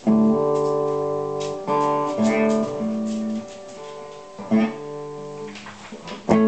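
Hollow-body electric guitar played slowly: ringing notes and chords that change every second or so, softer in the second half, with a louder chord struck near the end.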